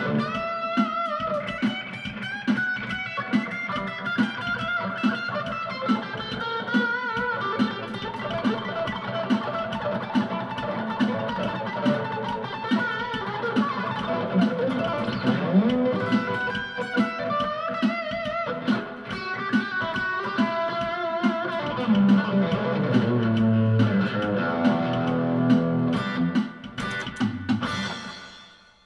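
PRS electric guitar played through a Roland Cube-10 practice amp on its Crunch (mildly overdriven) setting: continuous picked single-note lines with sustain and some lower notes. It fades out about a second before the end.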